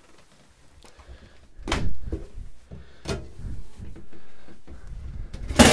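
Caravan interior fittings being handled: a few soft knocks and thuds, then a sharp click near the end, like a cupboard door latching.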